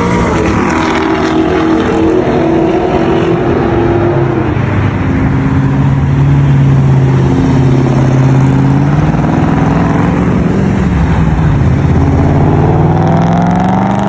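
Sports-car engines and exhausts: an engine note falls over the first few seconds, holds steady through the middle, then climbs again near the end as a car accelerates.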